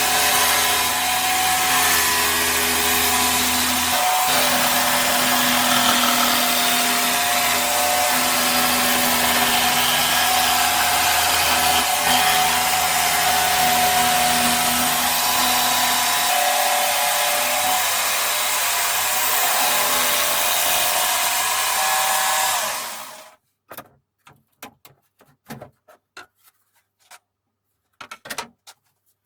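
Table-mounted jigsaw running steadily as it saws a large round cut in wood, then switched off about 23 seconds in and running down. A few light knocks and clicks follow.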